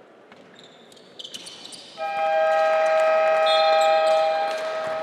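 Basketball arena buzzer sounding one loud, steady horn tone. It starts about two seconds in, holds for about two and a half seconds and then trails off. A few short high squeaks come just before it.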